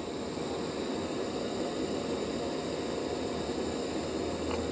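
Trangia gas burner running at full flame on a Primus canister, a steady hiss, under an aluminium Trangia T-Cup holding 300 ml of water that is close to the boil.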